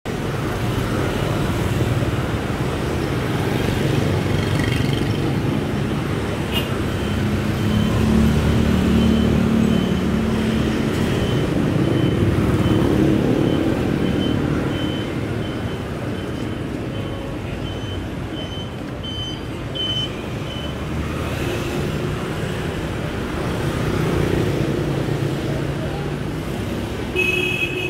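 Street traffic going by steadily, with vehicles passing and swelling louder about a third of the way in. A high beep repeats about every two-thirds of a second through the middle stretch.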